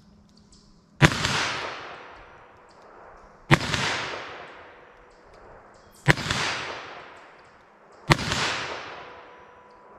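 Four pistol shots of .22 WMR (.22 Magnum) ammunition, fired a second or two apart at an uneven pace. Each crack is followed by an echo that dies away over about two seconds.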